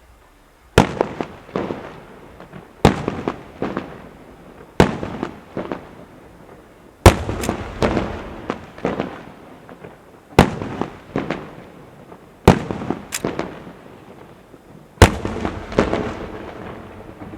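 Fireworks going off: about seven loud bangs at intervals of two to three seconds, each followed by a few smaller cracks and a rolling echo that dies away.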